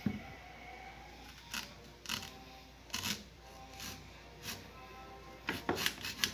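Small kitchen knife cutting through a peeled onion held in the hand: several short crisp cuts, three in quick succession near the end.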